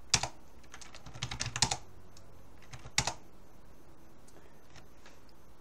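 Computer keyboard typing: a couple of keystrokes, then a quick run of keystrokes about a second in, and one last single keystroke about three seconds in.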